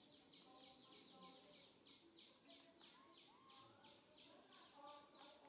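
Faint bird calling: a steady run of high notes, each falling in pitch, about four a second, with fainter scattered chirps lower down.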